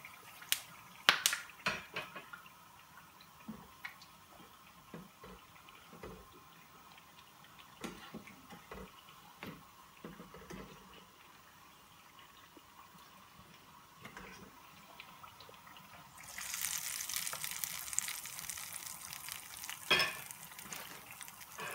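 A tempering of mustard seeds, urad dal, fenugreek and curry leaves crackles in hot oil in a small pan with scattered pops and clicks. About sixteen seconds in, a loud steady sizzle starts as the hot tempering is poured over the chutney.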